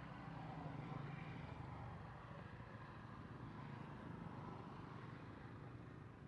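Faint, steady outdoor background rumble, swelling slightly about a second in.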